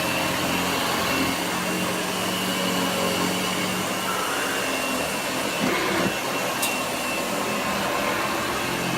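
A c.1926 Hoover 700 upright vacuum cleaner running steadily, its motor and beater bar drawing up shredded paper from a rug.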